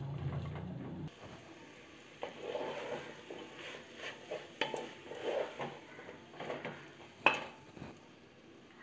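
Wooden spatula stirring and scraping thick spice masala around an aluminium pressure cooker, in irregular strokes about twice a second. There is one sharp knock of the spatula against the cooker about seven seconds in, and a low hum during the first second.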